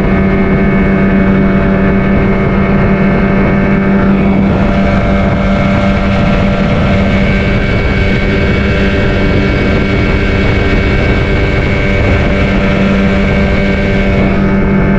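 Outboard motor on a fibreglass fishing boat running steadily at speed, its engine note held even over a constant rush of wind and water noise.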